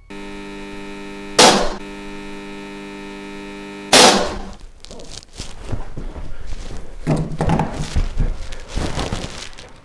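A steady electrical hum broken by two loud bangs about two and a half seconds apart. The hum cuts off at the second bang, and irregular rustling and knocking follow as a man gets up off a sofa.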